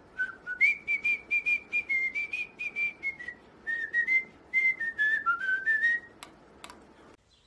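Cockatiel whistling a run of short notes that step up and down in pitch, stopping about six seconds in, followed by a few light clicks.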